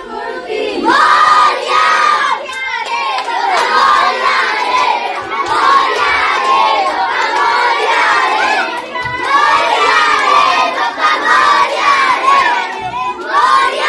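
A crowd of women and children shouting and chanting together in high voices, with some hand clapping mixed in.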